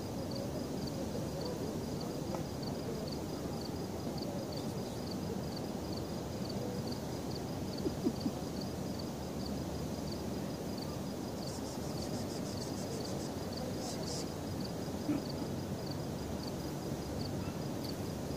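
Outdoor night ambience: a steady low rumble, with a faint high chirp repeating about twice a second. Two soft knocks come about eight seconds in.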